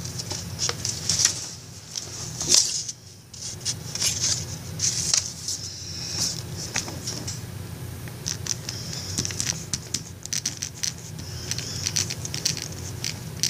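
Sheets of paper being handled and shifted on a desk, followed by a ballpoint pen scratching across paper in short strokes as words are written.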